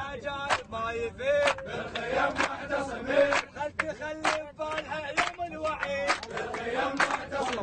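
A crowd of young men chanting together in unison, with sharp claps about once a second.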